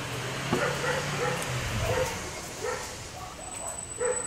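A dog whimpering: short, high whines repeated about twice a second. A low hum runs underneath and stops about two seconds in.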